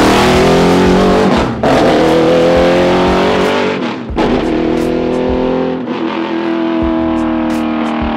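Chevrolet CT525 LS-based V8 race engine in a squarebody Chevy pickup accelerating hard, its note climbing in pitch and dropping back about a second and a half, four and six seconds in, then fading out at the end.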